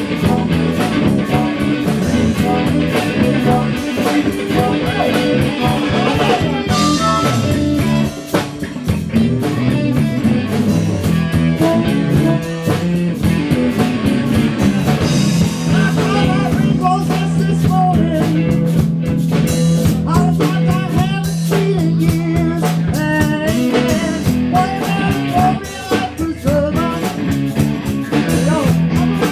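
Live band playing amplified blues-rock: electric guitar over a drum kit.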